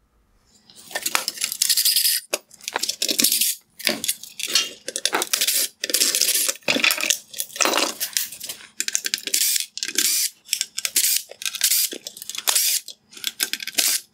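Hand-tool disassembly work on a plastic headlight bracket: a run of irregular short scraping and grinding bursts as Phillips screws are backed out, with small metallic clinks.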